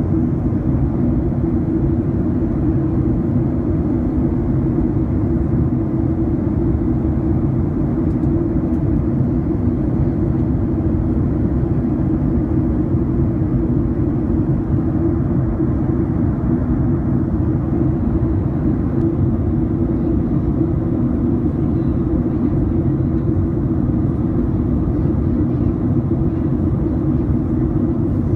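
Jet airliner cabin noise in cruise: a steady low roar of engines and rushing air with an even hum, heard from inside the cabin.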